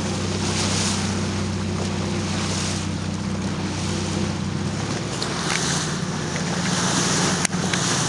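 Boat engine running steadily under wind buffeting the microphone and sea water rushing past. The engine note changes about five seconds in, and there is a sharp click near the end.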